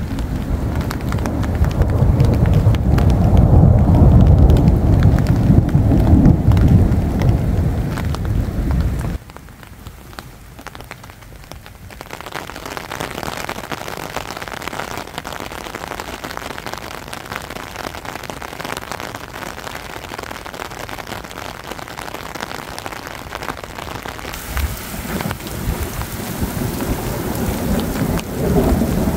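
Thunder rumbling loudly for about nine seconds, cut off abruptly, then steady heavy rain hissing down, with thunder rumbling again near the end.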